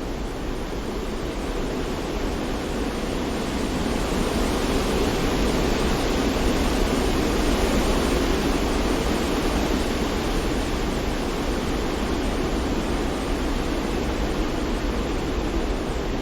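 Steady rushing white noise from a sleep-noise track, even and unbroken, swelling slightly a few seconds in and then easing back a little.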